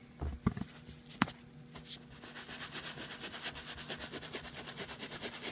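A stiff brush scrubbing a heavily soiled leather car seat with quick, even back-and-forth strokes, starting about two seconds in. The strokes work leather cleaner and steam into the grime. A few knocks and a sharp click come before the scrubbing.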